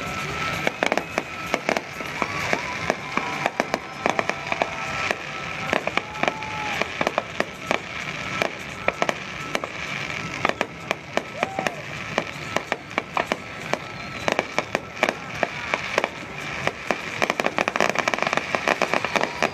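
Fireworks going off in rapid succession, with many sharp bangs and crackles that come thicker near the end.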